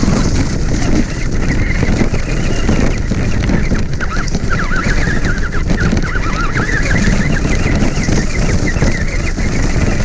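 Radio-controlled car driving over rough woodland ground, recorded from a GoPro mounted on it: a loud, steady rumble and rattle from the wheels and chassis. A wavering higher whine rises and falls from about four to eight seconds in.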